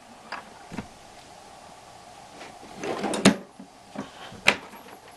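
Scattered short metallic clicks and knocks of reloading gear being worked to seat a bullet into a .30-06 cartridge case with a reloading die. The loudest knocks come about three seconds in and again about four and a half seconds in.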